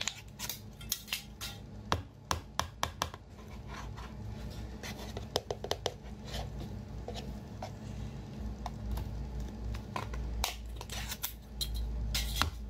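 Screw lid of a plastic food jar twisted open with a quick run of sharp clicks, then marinated food tipped and pulled out of the jar onto a serving plate, with scattered clicks, wet rustles and taps as the jar and pieces meet the plate.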